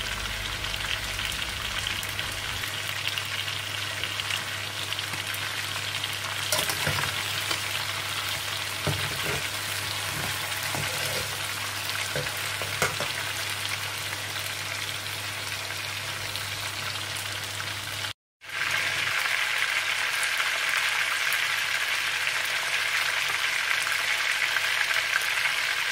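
Chicken pieces sizzling steadily in hot oil in a karahi, with a few clicks and scrapes of stirring against the pan in the first half. The sound cuts out for a moment about two-thirds of the way through, and the sizzle comes back a little louder.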